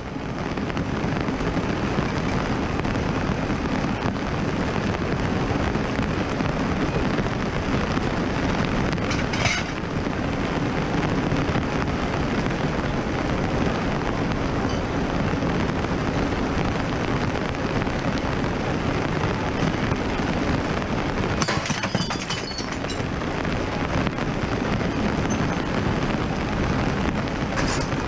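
Steady hiss of heavy rain, with a few short knocks and clatters, a small cluster of them about two thirds of the way through.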